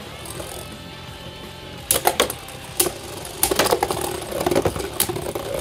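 Two Beyblade Burst tops, a 3D-printed custom top and a Slash Valkyrie, spinning with a steady whir and clashing in sharp plastic clicks: a pair about two seconds in, then a rapid flurry of hits from about three and a half seconds on. Background music plays underneath.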